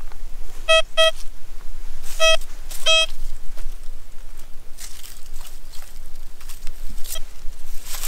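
Metal detector giving four short, same-pitched target beeps, two close together and then two more, as a stone is passed near it. These are followed by faint rustling.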